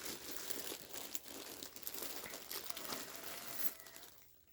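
Packaging bag crinkling and rustling as it is handled and opened to get the yarn out, dying away about four seconds in.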